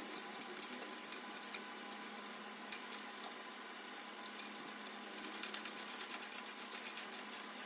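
Ratchet of a socket wrench clicking in runs of quick, soft ticks as a nut is tightened, the ticks coming thicker near the end.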